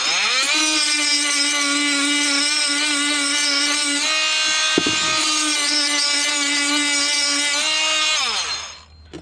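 Oscillating multi-tool starting up, running at a steady high-pitched buzz and winding down near the end, its old blade held against an abrasive edge to grind the teeth off. A single sharp knock about halfway through.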